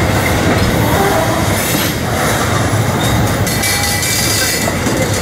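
Freight train of Herzog ballast hopper cars rolling past close by: a steady rumble of steel wheels on rail, with brief faint wheel squeals.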